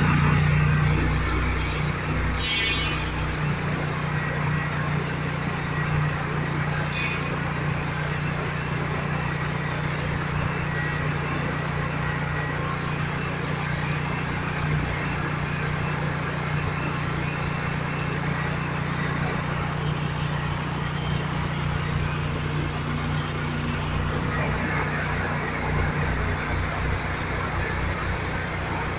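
A motor running steadily with a low, even hum, coming on with a brief surge at the start.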